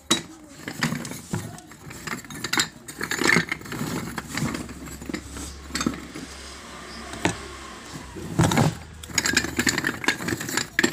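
Small unglazed clay cups clinking and knocking against one another as they are handled and shifted in a box, in many short irregular clicks. A low hum runs underneath through the middle stretch.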